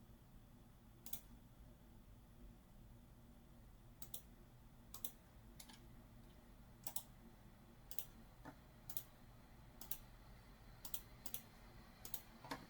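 Faint computer mouse clicks, scattered irregularly about once a second, with a few quick double clicks near the end.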